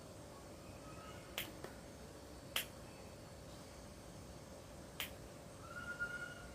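Three sharp single clicks, a second or more apart, against faint room hiss.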